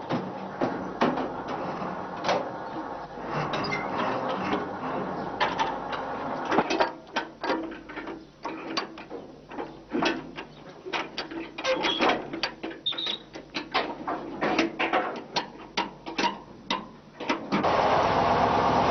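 A rapid, irregular run of mechanical clicks and clanks, with a few sharp knocks standing out. Near the end a louder steady machine noise takes over.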